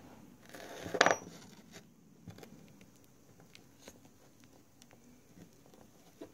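Ribbon rustling in the hands as it is twisted onto a sewing needle, with one sharp click about a second in and light ticks and handling noises after.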